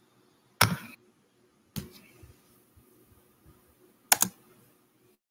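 Computer keyboard keys pressed: three sharp clacks with short pauses between, the last one doubled.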